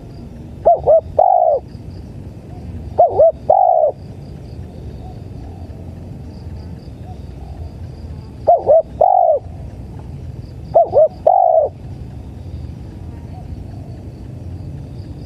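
Spotted dove calling four times, each call two short coos followed by a longer, lower-falling coo, over a steady background of crickets chirping.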